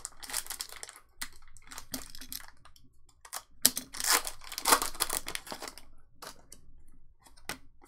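Foil trading-card booster pack being torn open and crinkled by hand, the crinkling loudest about halfway through, followed by a few sharp clicks as the cards are handled.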